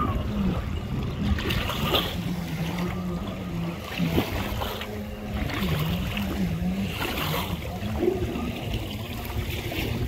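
Sea-Doo personal watercraft running across open water at a distance. Its engine drone is steady at first, then dips and rises in pitch several times as it carves turns.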